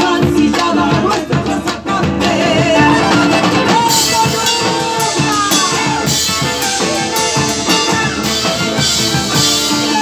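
Live Argentine folk music: several bombo legüero drums beaten with sticks in a driving rhythm, with acoustic guitar, drum kit and a singing voice over them.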